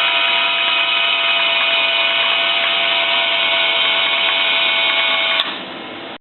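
Abnormal steady mechanical noise from a Noran Voyager X-ray detector, with several held tones over a hiss. About five seconds in a sharp click comes, and the noise becomes much quieter.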